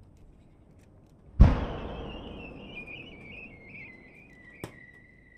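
A large aerial firework shell goes off with one loud boom about a second and a half in, its rumble fading slowly over the next few seconds. A thin high tone wavers and slowly falls in pitch after the boom, and a single sharp crack comes near the end.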